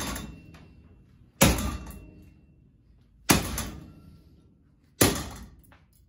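A hanging ceiling fan's motor unit being struck hard three times, about every second and a half to two seconds. Each blow is a sharp bang that dies away over about a second, some leaving a faint ringing tone.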